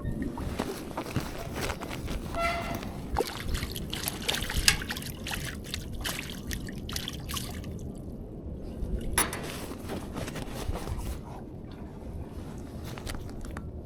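Water splashing and trickling at the lake edge, with many small clicks and knocks as a caught trout and the tackle are handled. There is a short pitched call about two and a half seconds in.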